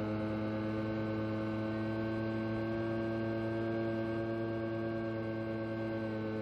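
Propeller motor of a small 1.2 m flying-wing UAV, heard through its onboard camera in flight: a steady, even drone with one higher tone drifting slightly up and back down.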